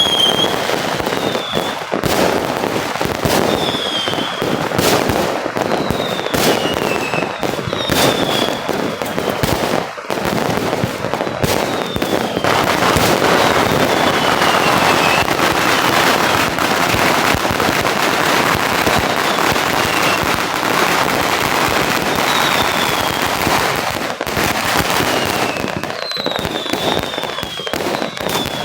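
Fireworks going off in quick succession: sharp bangs with a short, falling whistle every second or two, and a dense crackling barrage through the middle.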